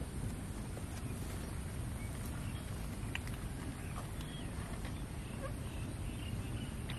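Cats purring as a kitten nurses from its mother: a steady low rumble, with a few faint soft clicks.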